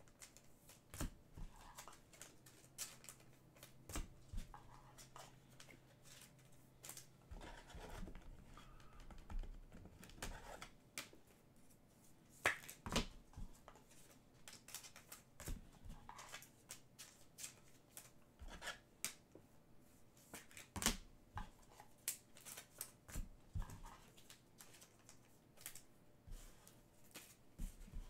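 Trading cards and packs being handled: faint, irregular clicks and rustles, a few sharper snaps among them.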